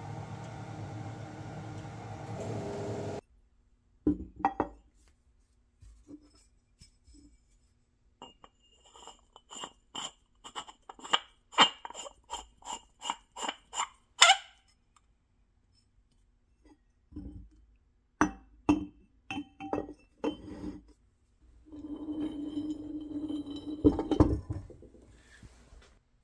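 A powder-coating spray gun hisses steadily and cuts off after about three seconds. Then comes a run of quick metallic clicks, about two or three a second, as the powder-coated parking-meter post is screwed into its cast-iron base flange. Scattered knocks and a short scraping follow as the parts are handled and fitted together.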